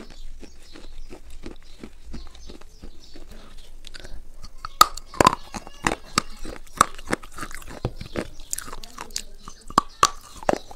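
A person chewing and biting a crunchy, brittle food close to the microphone: quiet steady chewing at first, then louder sharp crunches from about five seconds in as they bite into it again.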